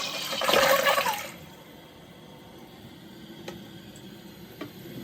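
Toilet flushing, with a loud rush of water that dies away about a second in. A quieter steady hiss follows as the tank refills through the newly fitted fill valve.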